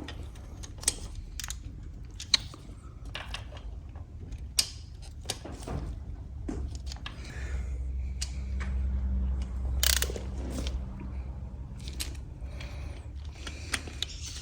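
Hand tools working on the engine: a ratchet clicking, with scattered sharp metallic clicks, over a low steady hum.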